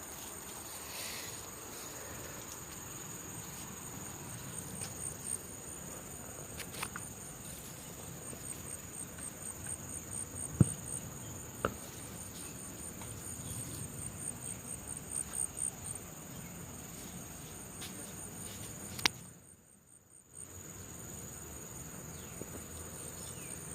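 Steady high-pitched chorus of insects such as crickets, trilling with a fast, even pulse. A few sharp clicks, and about twenty seconds in the sound briefly drops out after a click.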